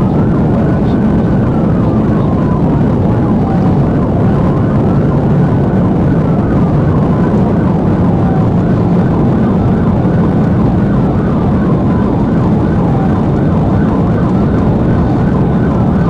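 Police car siren on a slow wail: each cycle rises quickly, then falls slowly, repeating about every five seconds. Underneath is a loud, steady low rumble of road and engine noise from the pursuing patrol car.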